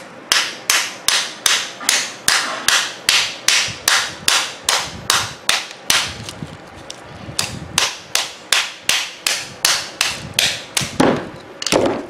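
Claw hammer striking a microwave oven transformer over and over, knocking the copper winding out of its steel core. The sharp blows come in an even run of about two to three a second, ending with a couple of harder blows.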